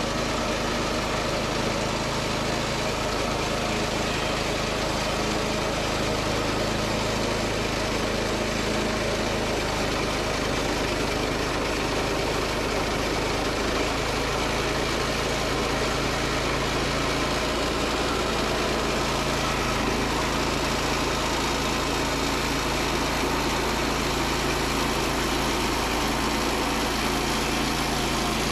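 Gasoline engine of a portable bandsaw sawmill running steadily as the mill saws through a log, the engine note shifting slightly a few times.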